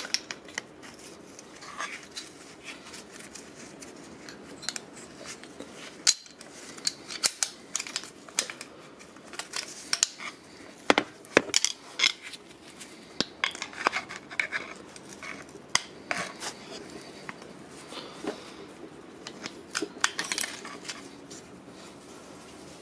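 Scattered light metallic clicks and clinks as a screwdriver and gloved hands work the chrome pushrod tubes and their clips on a Harley-Davidson V-twin engine.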